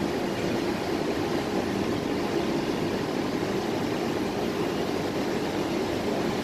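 Steady drone of construction machinery running across a large building site, an even hum with a hiss of noise over it and no distinct events.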